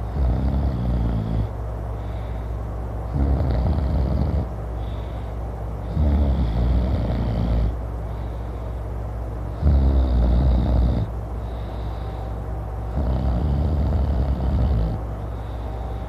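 A man snoring loudly in deep sleep: five deep, buzzing snores, one every three seconds or so, each lasting a second or two.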